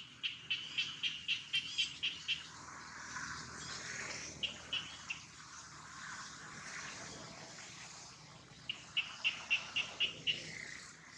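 A bird calling in runs of short, evenly spaced high chirps, about four a second: a long run at the start, three notes in the middle and another long run near the end.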